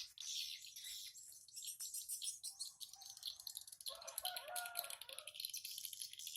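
Swiftlets twittering in high, rapid chirps and clicks, with a rooster crowing faintly about four seconds in.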